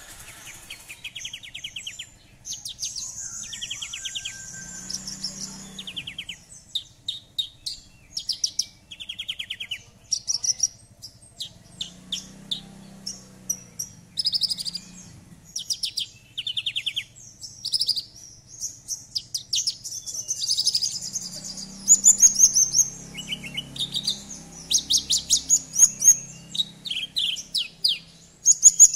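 Branjangan (Horsfield's bush lark) singing a long, varied song of rapid high trills, chirps and buzzy phrases with only brief pauses.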